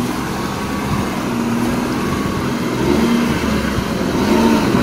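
Motor vehicle engine running, growing slowly louder, with a shift in pitch about three seconds in.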